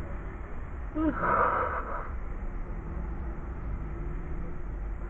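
A short breathy sound from a person, about a second in, over a steady low rumble.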